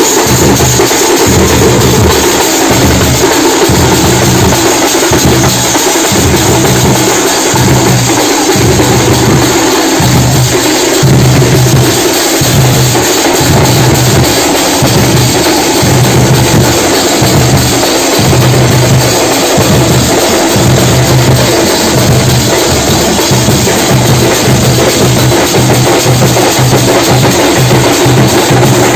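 A group of drums beaten with sticks, playing loudly and without pause: a dense, driving rhythm over a steady, heavy low beat.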